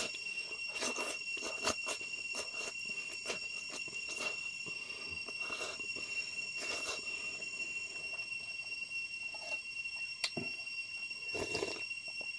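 Close-up eating sounds of a man eating spicy noodles and rice by hand: slurping, chewing and frequent lip smacks and clicks. A steady high-pitched tone runs underneath throughout.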